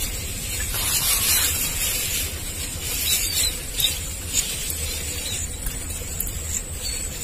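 Steady rushing hiss of flowing river water, swelling a little now and then, over a low rumble.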